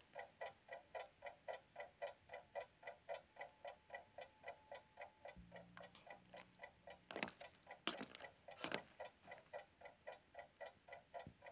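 Faint, even ticking of a clock, about four ticks a second. A few louder sharp knocks come past the middle.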